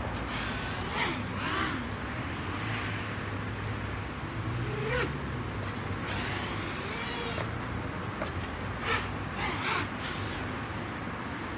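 Steady outdoor background noise with road traffic, a low hum that rises and falls, and a few brief louder sounds.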